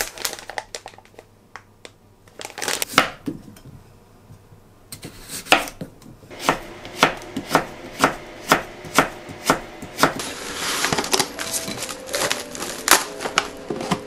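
Kitchen knife cutting a carrot into thin strips on a wooden cutting board: even strokes about two a second. Background music comes in near the end.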